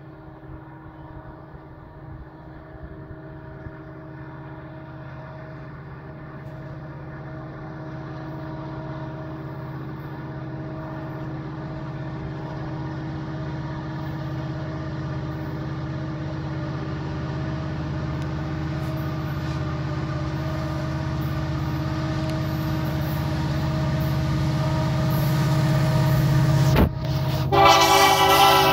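A CP EMD SD70ACu diesel locomotive leading a freight train approaches, its engine rumble steadily growing louder as it nears. A sharp click comes just before the end, then a short, loud blast of the locomotive's multi-note air horn as it passes beneath.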